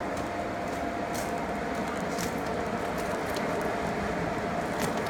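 Electric blower fan running steadily with a constant hum, forcing air into a coal forge fire, with a few sharp snaps from the burning coal.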